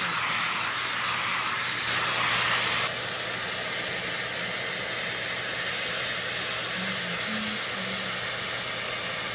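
Vacuum cleaner running steadily, its brush nozzle used to groom a dog's coat. The rush of suction swells briefly and then drops a little about three seconds in.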